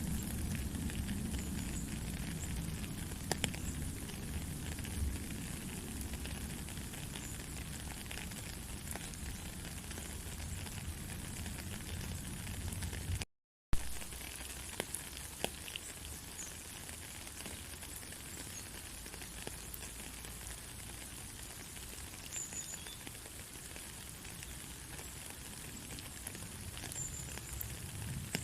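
Steady rain falling, a dense even hiss full of small pattering drops and ticks. The sound cuts out completely for a split second about halfway through, then carries on a little lighter.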